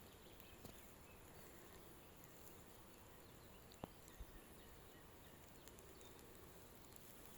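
Near silence: faint outdoor background hiss with a few soft clicks, one sharper tick a little past the middle.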